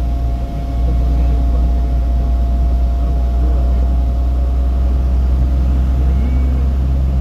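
Steady low rumble of a vehicle driving along a road, with a faint constant whine above it.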